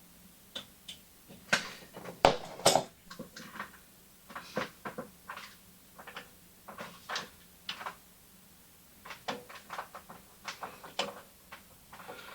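Gear change mechanism parts of a Norton Commando gearbox being handled and fitted, with irregular metal clicks and knocks as the parts are lined up. The loudest knocks come a little over two seconds in.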